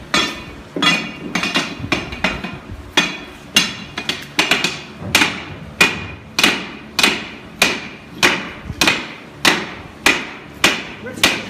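Hammers striking steel tools held against a hot steel band, driving the band along a wooden shaft where it fits tight. Metal-on-metal blows ring in a steady rhythm of about three every two seconds.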